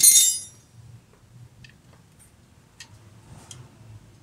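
Metal hand tools clinking: one sharp, ringing clink right at the start, then a few light clicks and taps.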